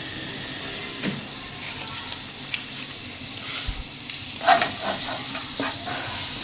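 Sliced onions and carrot strips sizzling steadily in oil in a frying pan, with a few knocks and scrapes of a spatula stirring them from about four and a half seconds in.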